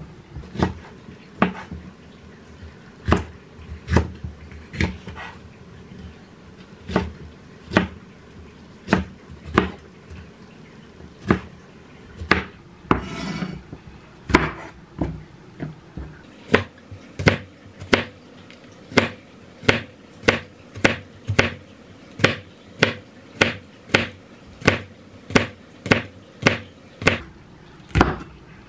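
Chef's knife cutting bell peppers and chili peppers on a wooden cutting board: sharp knocks of the blade on the board, scattered at first, then a steady run of nearly two cuts a second from about halfway through. A short scrape comes near the middle.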